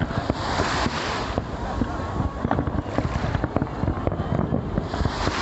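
Wind buffeting the microphone in two gusts, over outdoor background noise with scattered faint pops and clicks.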